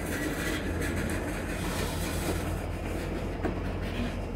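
Freight train cars, tank cars and boxcars, rolling past on the rails: a steady low rumble of wheels on track, with a few faint clicks over the rail joints.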